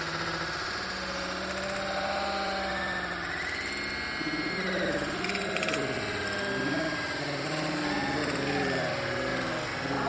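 Radio-controlled Cat D11T model bulldozer running, with a steady motor hum and a whine that rises and falls in pitch as the drive changes speed.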